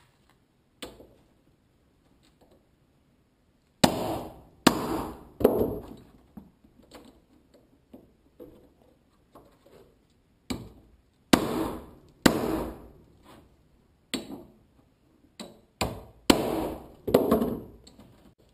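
A hammer striking the top of a hammer-type heavy-gauge crimping tool, metal on metal, crimping a battery-cable connector onto welding lead. About a dozen sharp blows come in loose groups of two or three with pauses between, each ringing briefly.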